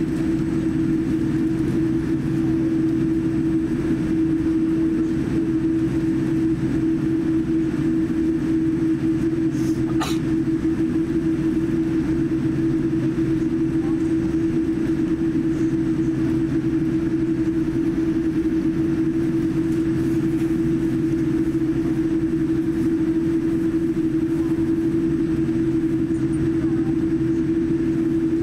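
Cabin noise of a Boeing 787-9 airliner taxiing: a steady low hum over a constant rumble, with one brief click about ten seconds in.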